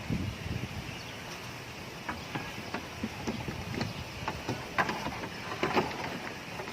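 Irregular clicks and knocks from tools and parts being handled, a few with a short metallic ring, over a steady background hiss.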